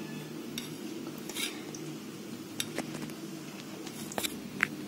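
A few faint clinks and taps of kitchenware over a steady low hum, with one brief ringing clink near the end.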